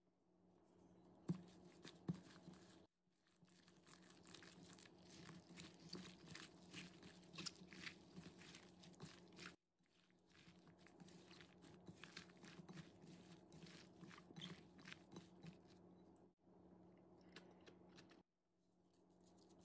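A hand in a plastic glove tossing sliced bamboo shoots, cucumber and chives with chili paste in a glass bowl: faint, irregular wet crunching and squishing, in stretches broken by sudden cuts. Two sharp knocks come about one and two seconds in, over a low steady hum.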